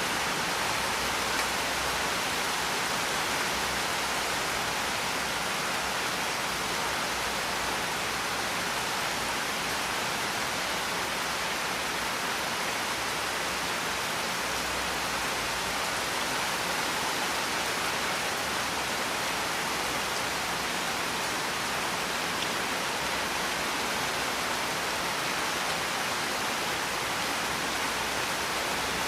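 Steady rain falling, a dense even hiss of countless drops with no single drop standing out and no change in strength.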